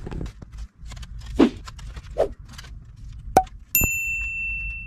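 Handling noise of a few knocks and rustles, then a metal object struck once near the end. It rings with a clear high ding that fades over about a second.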